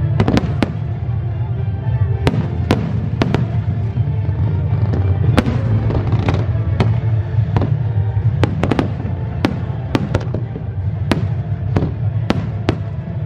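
Aerial firework shells bursting overhead: sharp bangs coming irregularly, about one or two a second and often in quick pairs or clusters, over a steady low rumble.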